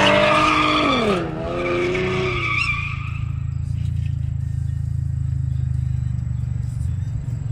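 A car engine revving hard with tyre noise as a car skids off the road, its pitch falling about a second in as the revs drop. It fades out by the middle, leaving a steady low rumble.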